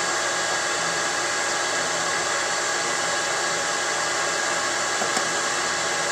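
Steady whir and rush of a Koolant Koolers 5-ton air-cooled chiller running with its one-horsepower water pump on and the compressor not yet started, with a few faint steady tones over the noise.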